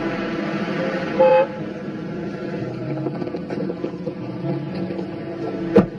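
City street traffic running steadily, with a car horn giving one short honk about a second in and a single sharp knock near the end.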